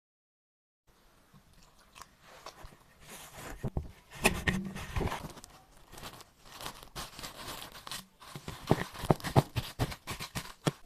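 Irregular crunching, crackling and scraping of kitchen handling as the pastry ingredients are prepared. The sounds start about a second in and come in two busier stretches.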